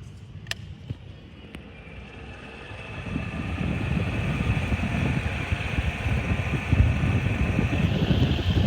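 A couple of clicks, then a very fast stand fan spinning up over a few seconds to a steady high-speed whir. Its airflow buffets the microphone with a loud rumble.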